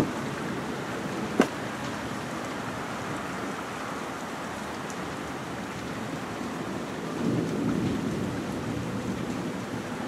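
Steady hiss of rain during a thunderstorm, with a low rumble swelling about seven seconds in. A single sharp click comes about a second and a half in.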